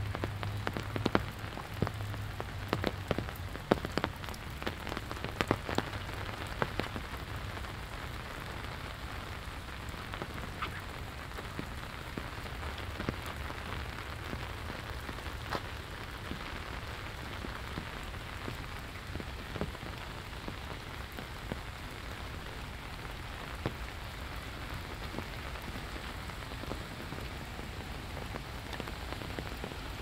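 Steady rain falling, with many sharp, close drop impacts in the first seven seconds or so and fewer after that.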